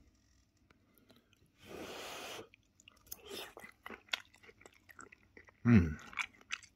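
A person eating a hot garlic-butter shrimp: a short breathy rush of blowing about two seconds in, then wet, clicking chewing, and a short falling 'mm' near the end.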